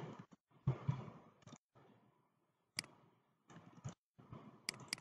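Faint computer keyboard typing and mouse clicks: a few scattered light clicks, with sharper single clicks a little before the middle and twice close together near the end.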